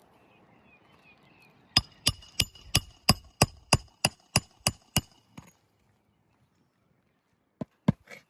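A hammer strikes the metal nail-driving tool of a shingle repair kit with about a dozen quick blows, roughly three a second, each with a metallic ring. After a pause come two more blows near the end. The tool fails to drive the nail flush.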